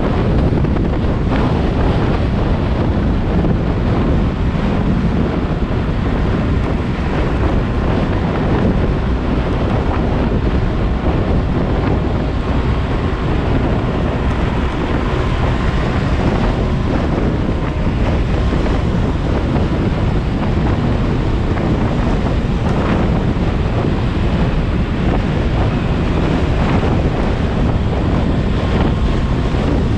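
Steady, heavy wind noise rumbling on a GoPro Hero 7 Black's microphone, mounted on a scooter riding at speed, with road noise underneath.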